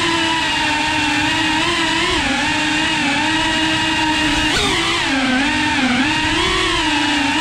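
FPV quadcopter's motors whining steadily, the pitch wavering up and down with the throttle and dipping sharply then climbing back about four and a half seconds in.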